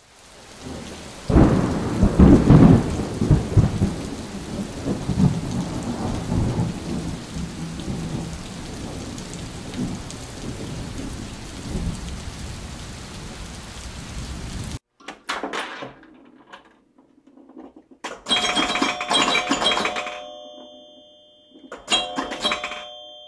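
Heavy rain with rolling thunder, the rumble loudest a couple of seconds in, cutting off abruptly after about fifteen seconds. Then come three short bursts of clatter with bell-like ringing that dies away after each.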